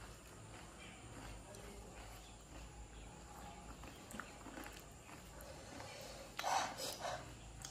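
Eating sounds at the table: faint crackles of crisp panipuri shells being broken open with fingers. Near the end comes a short, louder rustling noise in two quick pulses.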